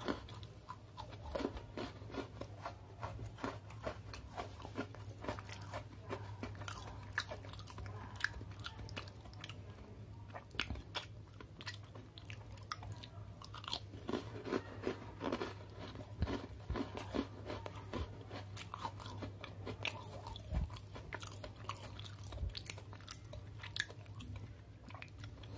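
Someone biting and chewing crunchy red velvet Oreo sandwich cookies: a long run of small crisp crunches and chewing clicks, clustering more densely at times.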